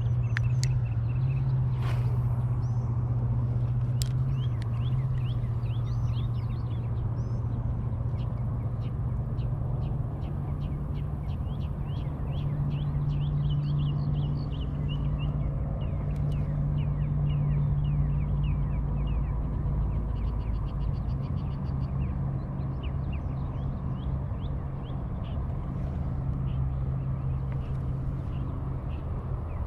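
An engine running steadily with a low hum that shifts slightly about two-thirds of the way through, while birds chirp over it.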